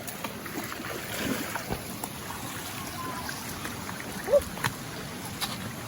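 Steady rush of river water with scattered knocks, as of steps on loose rocks, and a brief rising sound about four seconds in.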